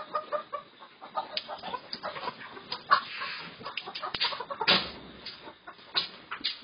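A crowded flock of layer hens clucking, with many short, overlapping calls and one louder, sharper sound about two thirds of the way through.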